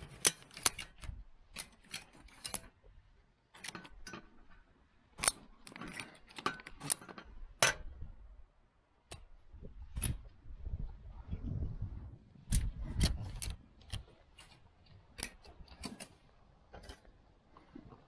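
Ratchet tie-down strap being cranked a little at a time to draw hay elevator sections together, its ratchet clicking in irregular bursts. A low rumble comes in about eleven to fourteen seconds in.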